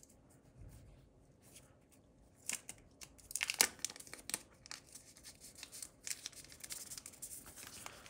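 Paper sleeve being opened by hand and a sheet of stickers slid out: irregular paper rustling and crinkling that starts a couple of seconds in and is busiest around three to four and a half seconds in.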